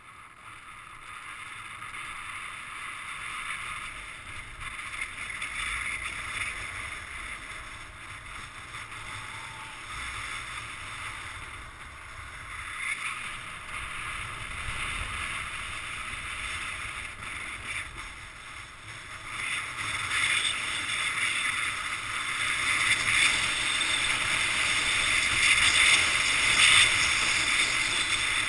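Skis hissing and scraping over groomed snow, mixed with wind noise, getting louder from about twenty seconds in.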